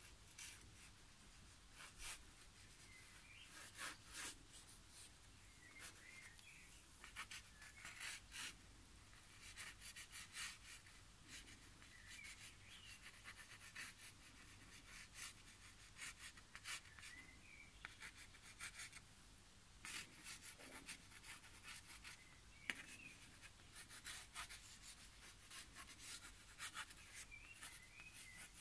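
Faint scratching of a Parker Vector pen on stretched paper, in many short, quick, irregular sketching strokes.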